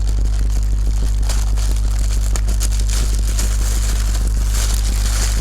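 Close-miked mukbang eating sounds: crackly chewing and crunching with small crinkles, over a loud steady low electrical hum.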